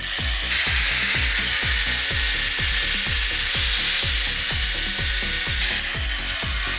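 Background music with a fast, steady beat over a continuous harsh, high-pitched hiss of abrasive tool work, typical of the steel blade being ground or filed to shape.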